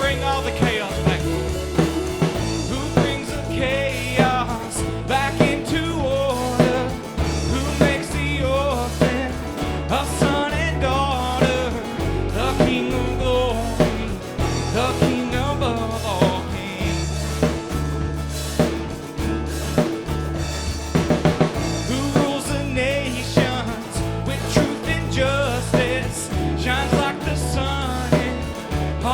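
Worship band music with a steady drum kit beat, a bass line and a wavering lead melody over it.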